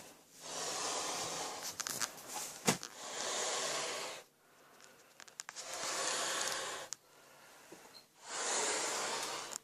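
Heavy, slow breathing close to the microphone: four long noisy breaths about every two and a half seconds, with a few small handling clicks between the first two.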